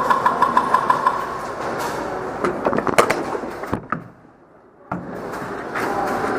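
Airsoft electric gun firing a rapid full-auto burst, about eight shots a second over a steady motor whine, then a few single cracks.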